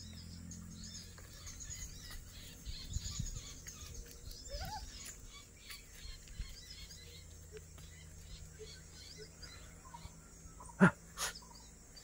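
Faint twittering of small birds, thick in the first half and thinning out, over a low steady hum. Near the end come two short sharp sounds close together, the first the loudest.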